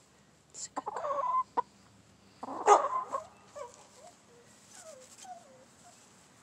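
Chickens clucking: a call about a second in, a louder squawk a little before the middle, then a few short, soft, falling chirps.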